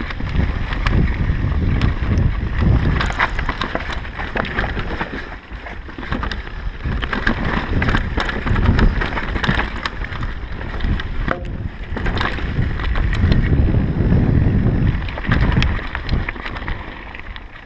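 Wind buffeting an action camera's microphone on a mountain bike ride, a surging low rumble, with the bike's frequent rattles and clicks over rough trail.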